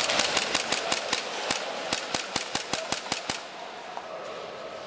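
Airsoft guns firing: a rapid, uneven string of sharp cracks, about six to eight a second, that stops after about three seconds.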